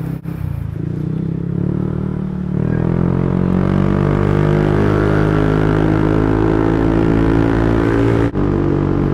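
Yamaha NMAX 155 scooter's single-cylinder engine, heard through its aftermarket JVT exhaust pipe, running under way. About two and a half seconds in, the engine note rises as the scooter accelerates, then settles into a steady cruise.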